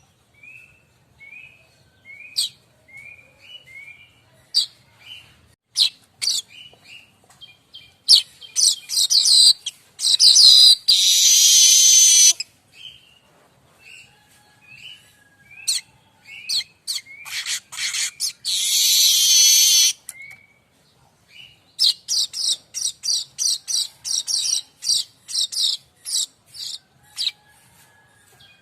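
Streaked weaver (manyar kembang) singing: a run of short, separate chirps, then several long, loud, harsh buzzy trills mixed with quicker chirping notes.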